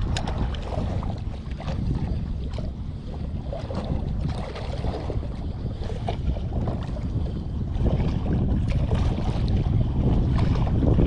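Wind buffeting the microphone: a low, uneven rumble that rises and falls, with a few faint clicks mixed in.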